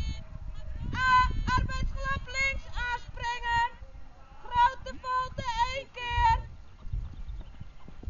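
Music with a high singing voice: a run of short and held notes from about a second in, with a wavering note near the end, stopping at about six seconds.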